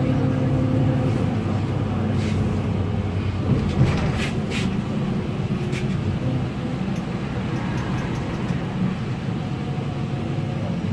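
Solaris Urbino 8.9LE city bus under way, heard from inside the cabin: a steady low engine drone with road noise, and a few short rattles about four seconds in.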